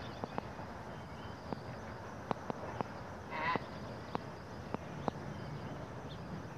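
Corgi giving one short, high whine about halfway through, with a dozen scattered sharp light clicks around it.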